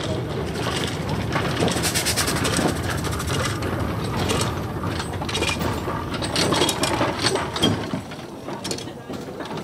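Replica Steam Elephant steam locomotive and its wooden waggons rolling slowly past on the rails, with continuous clanking and rattling from the wheels, rods and gearing. It falls off in loudness near the end.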